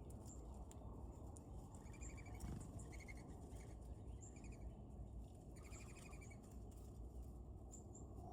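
Wild birds calling faintly with short trilled notes, about five in all, with thin high chips in between, over a steady low background rumble.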